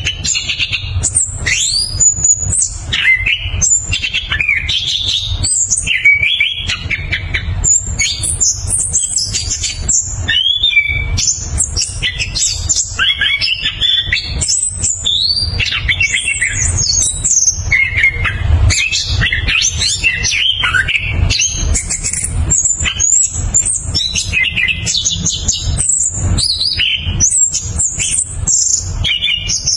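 Chestnut-capped thrush (anis kembang) singing a fast, continuous rolling song of varied high whistles and trills, phrase after phrase with no pause. A steady low rumble runs underneath.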